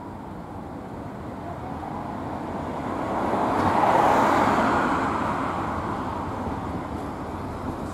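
A vehicle passing close by: a smooth rushing rolling noise that swells to a peak about four seconds in and then fades.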